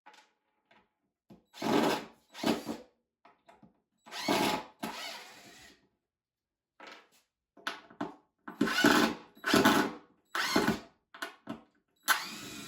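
A power drill backing screws out of the wooden bottom of a toolbox, running in about eight short bursts of half a second to a second each, with pauses between them.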